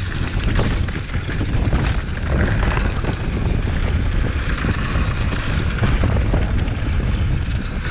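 Heavy wind buffeting on the microphone over a continuous low rumble, with scattered short knocks and rattles.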